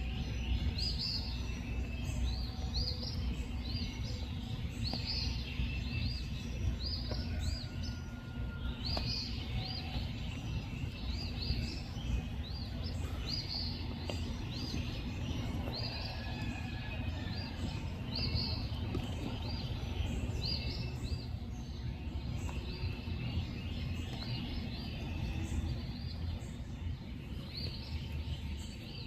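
Night ambience: many short high chirps, repeating irregularly a few times a second, over a steady low rumble.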